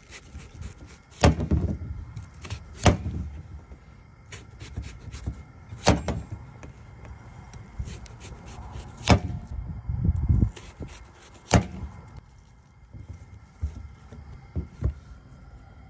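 A chef's knife cutting through watermelon rind and knocking on the metal tabletop: about five sharp knocks a few seconds apart, with softer cutting and handling sounds between them.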